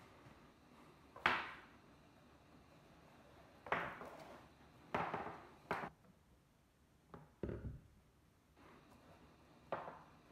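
Three-strand rope being worked by hand with a metal splicing spike: short scrapes and rustles of the strands, with a few sharp knocks and taps against a wooden board and one deeper thump near the end.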